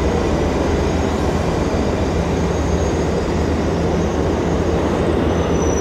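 Passenger train rolling slowly past: a steady, loud rumble of wheels on rail and running gear.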